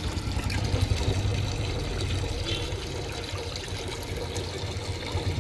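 Water sloshing and splashing in a steel bowl as raw trotters are rubbed clean by hand, with small irregular clicks of the pieces knocking together, over a steady low rumble.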